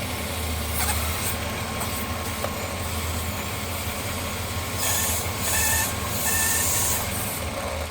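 Chevy 4.3 V6 idling with a hissing, whistling vacuum leak from a hole in a vacuum hose fitting, the leak the owner blames for the engine stumbling at startup. The hiss and whistle flare up three times in the second half.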